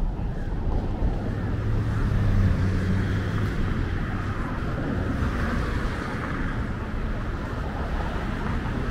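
Road traffic on the Pacific Coast Highway: vehicles driving past, with a low engine rumble that swells about two seconds in and a rush of tyre noise around the middle.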